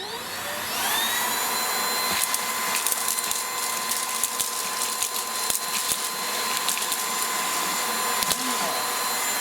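Aposen H250 cordless stick vacuum's motor spins up in the first second to a steady high whine, with scattered clicks and rattles as wet popcorn kernels are sucked in. The motor winds down at the very end.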